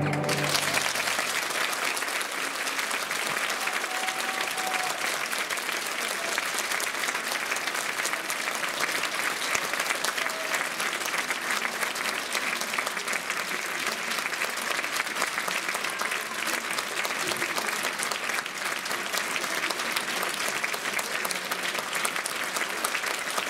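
Theatre audience applauding steadily, beginning just as the orchestra's final chord cuts off.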